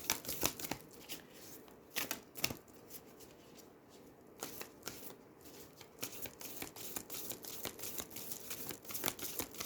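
A deck of oracle cards being shuffled by hand: a run of quick soft card clicks and slides. They are dense at first, thin out for a few seconds in the middle, then pick up again toward the end.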